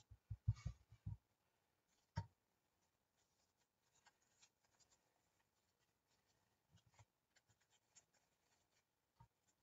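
Near silence with quiet handling of paper craft pieces: a few soft low taps on the work surface in the first second and another about two seconds in, then faint paper rustling and small clicks as pieces are pressed and glued down.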